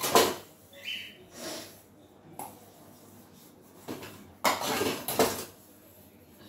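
Stainless-steel bowls and plates clattering and scraping against each other as they are scrubbed by hand in a sink, in irregular bursts. The loudest clatter is about four and a half to five and a half seconds in.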